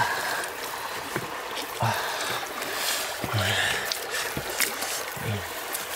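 Hands scooping and squelching through wet mud in a waterlogged hole, with water sloshing and several soft, low squelches as handfuls of mud are moved.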